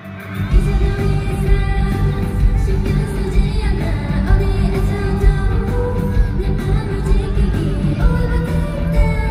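A K-pop girl-group song played through the concert PA, with female vocals over a heavy beat that comes in hard about half a second in after a brief drop.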